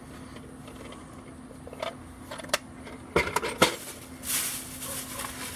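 Metal hand tools being handled, giving a few sharp clinks and knocks with the loudest a little over three seconds in, then a short scrape or rustle. A faint steady hum runs underneath.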